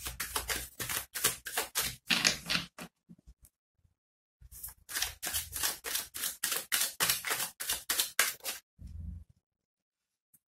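Tarot cards shuffled by hand: a fast run of crisp card-on-card clicks, a short pause, then a second run of clicks. A short dull bump follows near the end.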